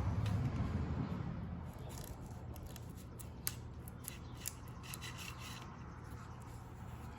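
Screen spline roller pressing rubber spline and screen mesh into a frame's channel: rubbing and rasping with scattered small clicks, loudest during the first second or so.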